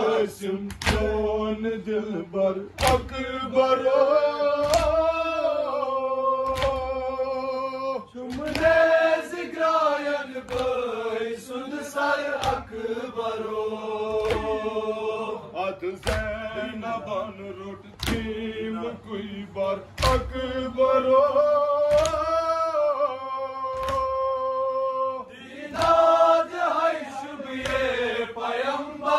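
A group chanting a Kashmiri noha, a Shia lament, in unison, with a sharp thump of chest-beating (matam) about every two seconds keeping time.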